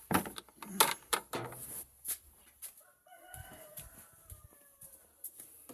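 A rooster crows once, about three seconds in, a long call that falls in pitch as it ends. Before it there are a few sharp knocks and clatters.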